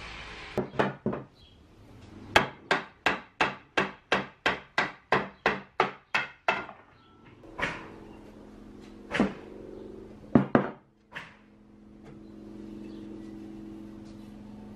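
A rubber mallet knocking solid-wood cot parts together during assembly. First a few knocks, then a quick run of about a dozen strikes at roughly three a second, then a handful of spaced knocks. A steady low hum runs under the last few seconds.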